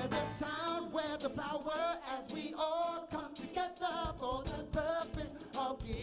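Live praise and worship song: a male lead vocalist sings with the band over a steady beat.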